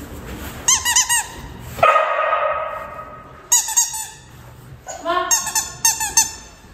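A bone-shaped rubber squeaky dog toy squeezed in quick runs of short, high squeaks: three about a second in, then longer runs later. About two seconds in there is a longer, rougher squeal.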